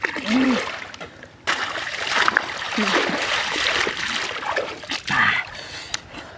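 Water splashing and trickling as cupped hands throw river water onto a face and it runs back off into the river. The splashing grows louder about a second and a half in.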